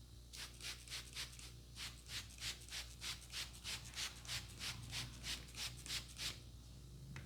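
Hands rubbing briskly back and forth over hair and scalp in a head massage, in an even rhythm of about three strokes a second that stops about six seconds in.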